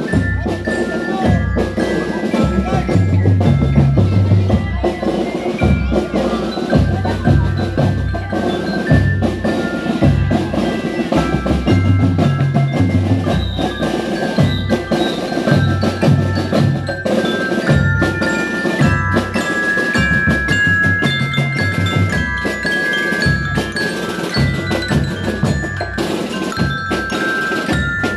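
Drum and lyre corps playing a march: marching bell lyres carry the melody in clear ringing notes over a steady beat of drums.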